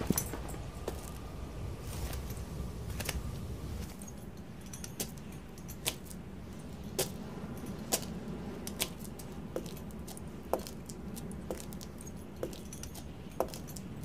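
Slow, evenly spaced boot footsteps on a hard floor, about one a second, each step with a light metallic jingle. A single sharp knock comes right at the start.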